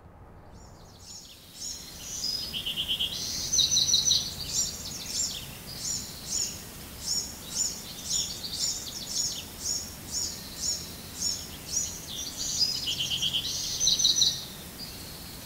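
Songbirds singing: a regular series of short high chirps, about two a second, with busier, denser phrases about three seconds in and again near the end.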